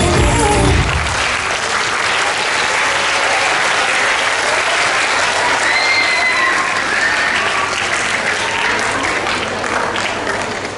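Audience applauding, with a few voices calling out; the music stops about a second in.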